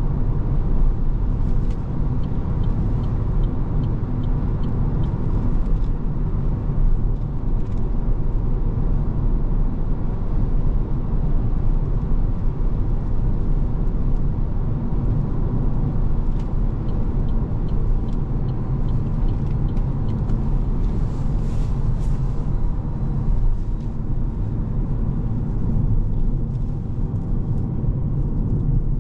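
Steady low tyre and road rumble inside the cabin of an Opel Corsa-e electric hatchback driving at highway speed.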